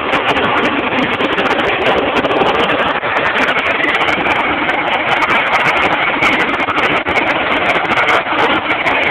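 Harrier jump jet hovering, its Rolls-Royce Pegasus vectored-thrust turbofan giving a loud, steady rush of jet noise, with a high whine coming in a few seconds in.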